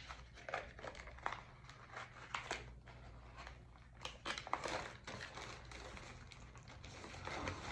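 Small kraft cardboard box being opened by hand: faint, irregular scrapes, taps and crinkles as the flaps are worked loose.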